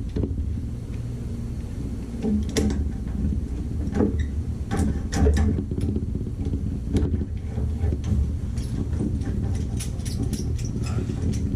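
Clicks, clinks and light knocks of small tool and faucet parts being handled while a Moen shower valve is worked on, coming more often in the second half, over a steady low hum.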